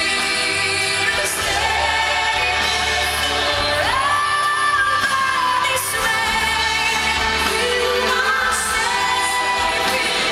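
Live pop music heard from the audience at a concert: a woman sings long held notes into a microphone over the band through the venue's sound system, with a note that rises and is held for about two seconds near the middle.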